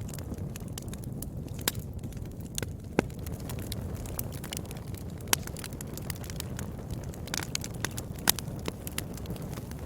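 Wood fire burning: a steady low rumble of flame with scattered sharp crackles and pops, a handful of them louder than the rest.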